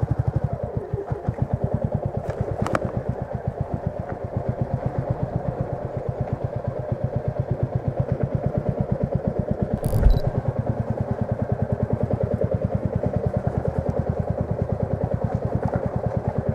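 Royal Enfield Meteor 350's single-cylinder engine running at low revs with an even, steady beat. About ten seconds in there is a single short thump.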